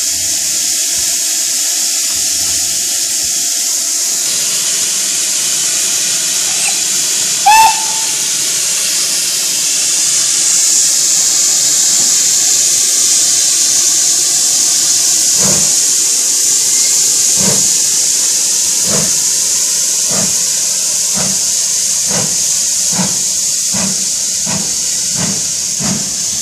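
GWR Castle class four-cylinder 4-6-0 steam locomotive 5029 starting away: steam hissing steadily, one short, loud whistle toot about seven seconds in, then exhaust beats from about fifteen seconds in, slow at first and quickening as it gathers speed.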